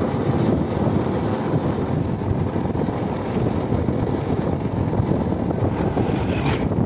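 Wind buffeting the microphone: a steady, rough rushing noise with no clear pitch and no breaks.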